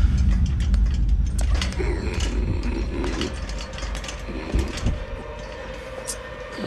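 A deep low rumble fading away. Over it come scattered metallic clicks and creaks, fitting steel scaffolding being climbed.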